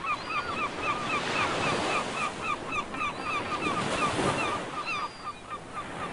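Surf washing in a steady hiss, with gulls calling in quick, repeated short cries over it that thin out near the end.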